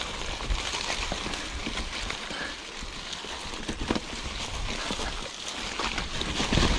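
Wind buffeting an outdoor microphone as a rumble and hiss, with many scattered short clicks and knocks, in the manner of handling or rough ground.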